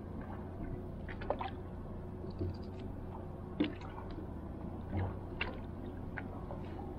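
Shears snipping through a lionfish's fin spines: several short, sharp snips at irregular intervals as the venomous spines are trimmed off, over a steady low hum.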